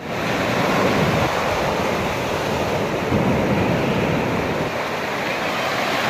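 Black Sea surf breaking and washing up the shore in a steady rush, fading in at the start.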